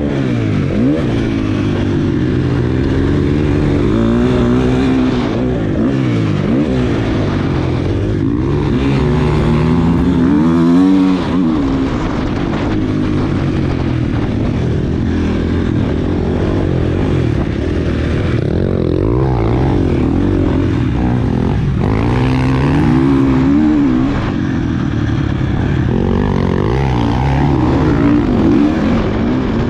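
KTM 250 SX-F motocross bike's single-cylinder four-stroke engine at race pace, its pitch climbing and dropping over and over as the throttle is opened and shut and the gears are shifted.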